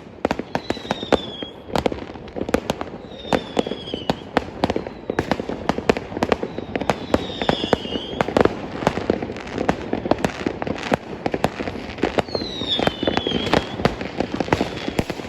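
Fireworks going off in a dense, continuous string of sharp bangs and pops, with a few short falling whistles of shells rising among them.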